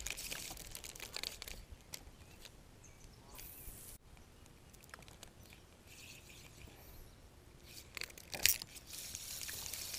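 Handling noise from a spinning rod and reel: scattered small clicks and rustles as the reel is worked, with one sharp knock near the end.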